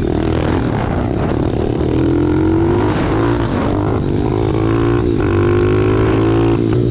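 Pit bike's single-cylinder four-stroke engine running under way, its pitch rising and falling with the throttle, dipping briefly twice near the end.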